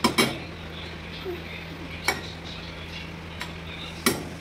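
Metal spoon stirring kofta curry in a metal kadhai, knocking against the pan three times: near the start, about two seconds in, and near the end. A steady low hum runs underneath.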